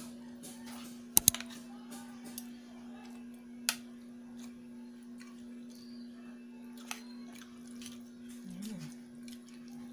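A person eating with a metal spoon: chewing, with a sharp double clink of the spoon against the bowl about a second in and single clinks near 4 and 7 seconds. A steady low hum runs underneath.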